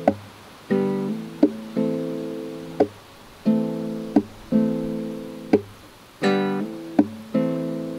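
Acoustic guitar strummed slowly, held chords broken by a sharp muted slap on the strings about every second and a half. A last chord is struck near the end and left ringing, closing the song.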